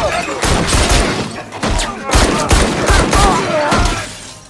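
Film action sound: a rapid run of loud bangs and hits, like a burst of gunfire, with shouted voices between them.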